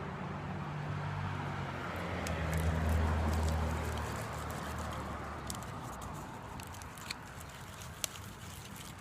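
A spoon stirring a slime mixture in a bowl, with a few sharp clicks in the second half. A low rumble swells about three seconds in and then fades.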